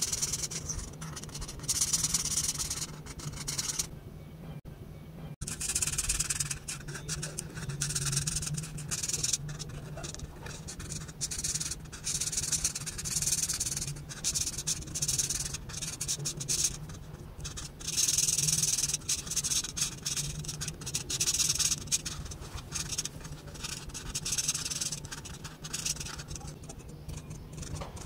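Felt-tip marker tip rubbing and scratching across paper in repeated colouring strokes of uneven length, with a short quiet break about four to five seconds in.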